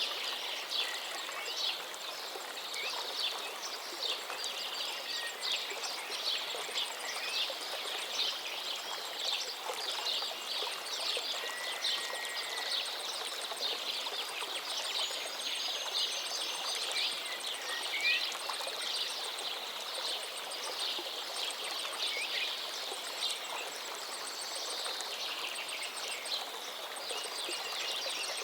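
Steady rush of a waterfall, an even hiss without pauses, with birds chirping over it many times.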